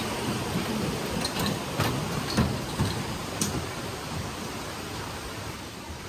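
Footsteps of someone walking down a trail, soft thumps about every half second, over a steady rushing hiss.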